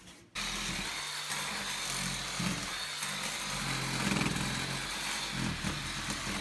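Cordless oscillating multi-tool with a scraper blade, switching on suddenly about a third of a second in and then running steadily as it scrapes old vinyl floor tile off concrete.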